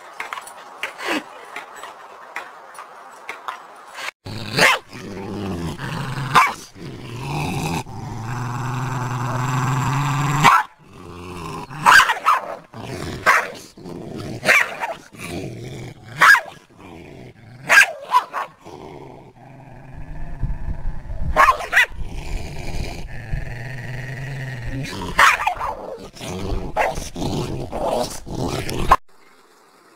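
A dog growling and barking, with sharp barks scattered throughout and long low growls in the first half and again in the second half.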